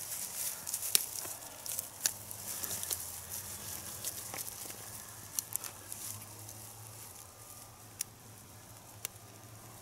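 Hands setting a steel foothold trap in dry grass: rustling and handling noise with scattered sharp clicks, the rustling thinning out over the last few seconds.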